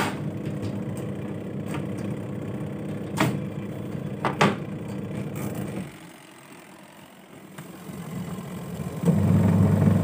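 Sanyo twin-tub washing machine's electric motor running with a steady hum, with a few knocks of the lid and casing. About six seconds in the hum drops away, then the spin-dryer motor starts, builds up and runs louder with a strong hum from about nine seconds in, spinning normally.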